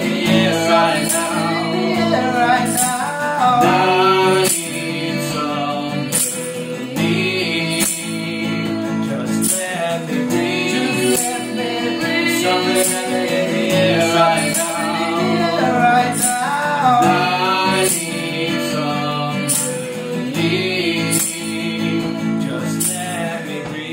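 Acoustic band playing: an acoustic guitar strummed, a hand tambourine struck in a regular beat, and male and female voices singing together.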